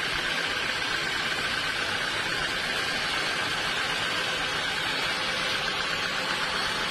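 Sawmill saw machinery running: a steady, even hiss with a faint high hum.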